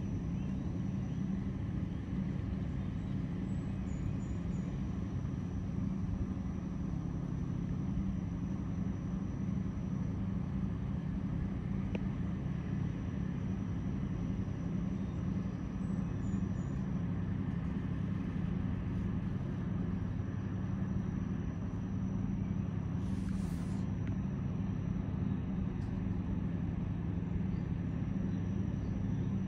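Towboat's diesel engines running under load while pushing a string of barges: a steady low drone that holds evenly throughout.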